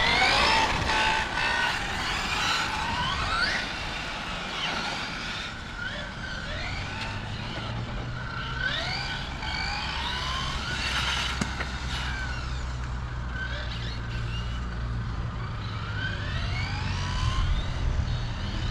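Electric radio-controlled cars' motors whining as they accelerate: repeated rising whines, several overlapping, with each burst of throttle. A low steady rumble sits underneath from about eight seconds in.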